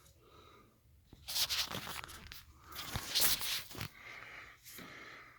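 Rustling and scraping handling noise, in two loud bursts about a second long, one about a second in and one near the middle, with fainter rustles around them.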